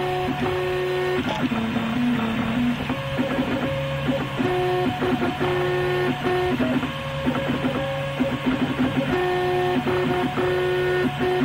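RepRap MendelMax 3D printer running, its stepper motors whining at steady pitches that jump to new pitches every second or two as the print head moves back and forth laying down an early layer, with short clicks at the direction changes. A steady low hum runs underneath.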